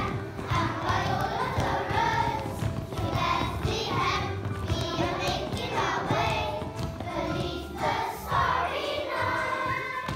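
A group of young children singing together, with instrumental music accompanying them.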